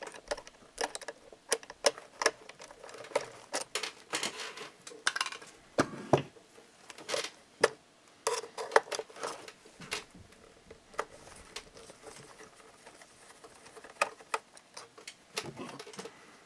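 Irregular small clicks and taps of a screwdriver and small metal parts being handled while the gearbox fasteners are removed from a 1/16 scale RC tank hull, thinning out after about twelve seconds.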